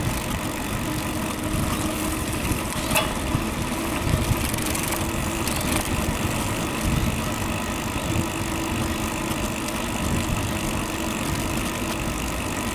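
Wind and road noise on the microphone of a camera carried on a bicycle being ridden, dense and churning, with a faint steady hum underneath and one sharp click about three seconds in.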